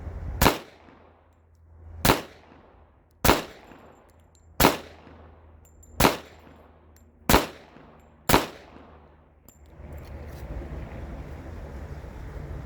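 Seven pistol shots fired at a steady slow pace, roughly one every second and a half, each a sharp crack with a brief ringing tail.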